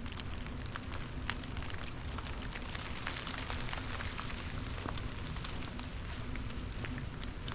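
Light rain falling on forest leaves: a steady hiss with many scattered drops ticking irregularly.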